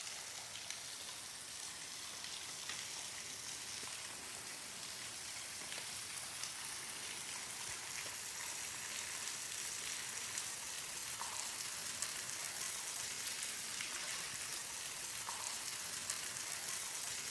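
Small waterfall splashing: a steady, even hiss of falling water with scattered droplet ticks, like rain.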